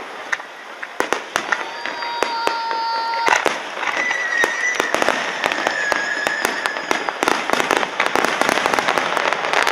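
Aerial fireworks going off in quick succession: sharp bangs and crackling, with held whistling tones from about one and a half seconds in and again from about four seconds in, and the crackling growing denser near the end.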